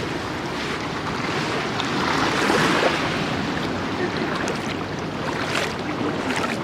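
Pacific Ocean surf washing onto the beach, a wave surging louder about two to three seconds in, with wind buffeting the microphone.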